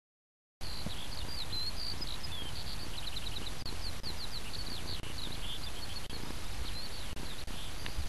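Wind rumbling on the microphone, with a small bird singing a quick, varied run of high chirps and trills over it. It starts abruptly about half a second in.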